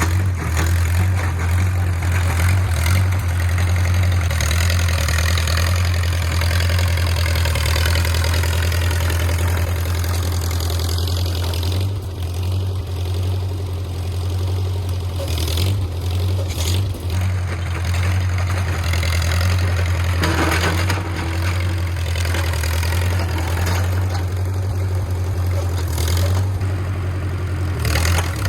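Engine of a 1950s micro bulldozer running steadily with a constant low hum.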